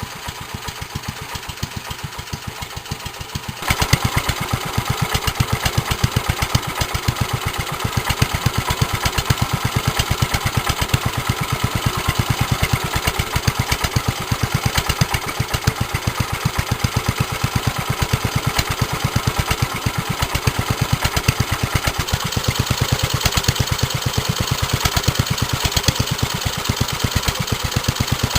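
1946 J.A.P. Model 5 side-valve four-stroke single-cylinder stationary engine running unloaded with its governor locked off, a steady, even beat of firing strokes. It gets suddenly louder and brighter about four seconds in. The owner judges it to be running acceptably, though it needs a load to run well.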